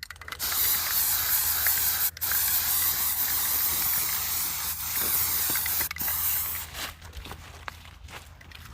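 Aerosol spray-paint can spraying paint onto a steel target in three long hissing bursts with two brief breaks, stopping about seven seconds in.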